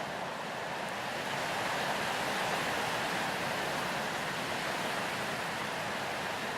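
Wind blowing through grass and pine needles, a steady hiss that swells a little about two seconds in and then eases slightly.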